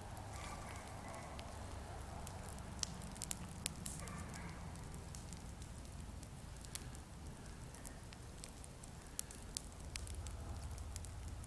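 Campfire burning with tall flames, scattered sharp crackles and pops over a steady low rumble.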